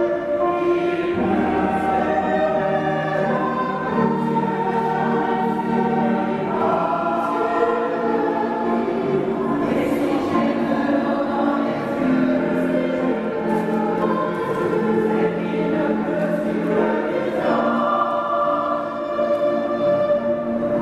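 Mixed choir of women's and men's voices singing in harmony, holding chords that change every second or two.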